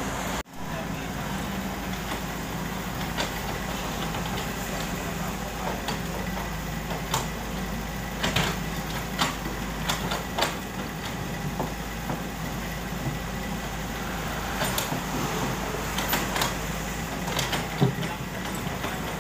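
Komatsu PC78US mini excavator's diesel engine running steadily under load while it digs. Scattered sharp clanks and knocks come through as the bucket scrapes and strikes rocks and broken ground.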